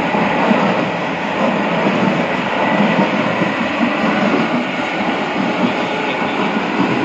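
Drum polishing machine running, with parts and finishing media tumbling inside the rotating barrel in a steady, continuous clatter.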